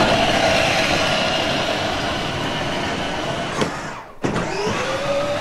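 Mickey Mouse Power Wheels battery-powered ride-on car driving, its electric motor giving a steady whine over the noise of its plastic wheels rolling on paving stones. The sound cuts out briefly about four seconds in, and then the whine rises back up as the car gets going again.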